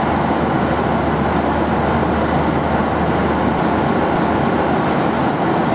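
Steady cruise cabin noise inside a Boeing 737-800 airliner: a constant rush of airflow and engine noise, with a low hum underneath that drops away about three and a half seconds in.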